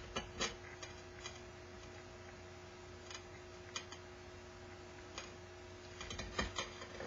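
Light, irregular clicks and taps of a ceramic bowl and lacquer brush being handled in gloved hands, with a quick cluster of them near the end. A steady faint hum runs underneath.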